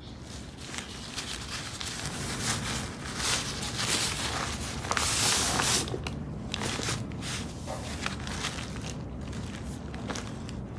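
Rustling of a cloth dust bag and crinkling of tissue paper as a handbag is handled and slid out of its dust bag by hand, in irregular bursts with the loudest rustle about five seconds in.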